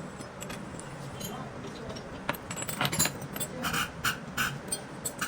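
Small metal parts and hand tools clinking and tapping as they are handled, a run of quick sharp clinks in the middle, over a steady low workshop hum.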